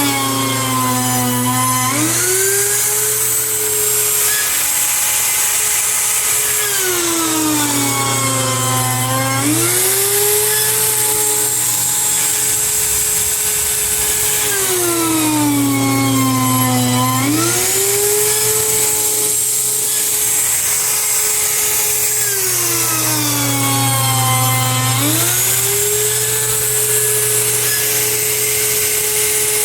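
Wood router running on an automated flattening sled, its whine sliding down and back up in pitch about every seven to eight seconds. A lower hum and a high hiss switch on and off in step with the cycle.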